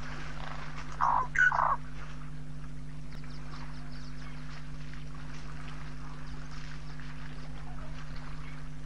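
Two short animal calls about a second in, over a steady low hum and a faint outdoor background.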